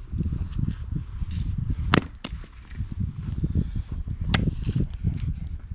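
An axe striking wood: two sharp chops about two seconds apart, the first the loudest, over a steady low rumble.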